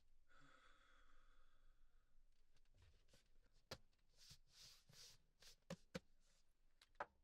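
A faint sigh lasting about two seconds, then quiet scattered clicks, knocks and rustles as hands feel around under a table.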